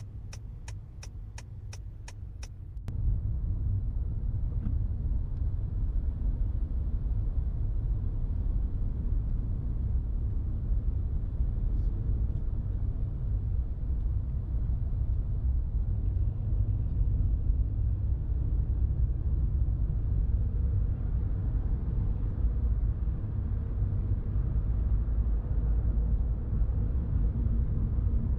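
Car cabin ambience: a regular ticking about twice a second stops about three seconds in. A steady low rumble from the moving car then grows louder and carries on.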